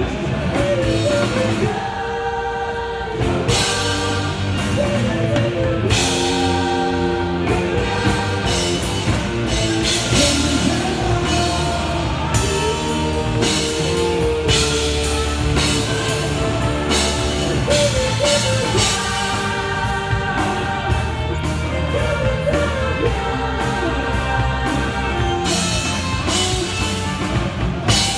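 Rock song played loudly over a concert sound system: singing over drums and electric guitars.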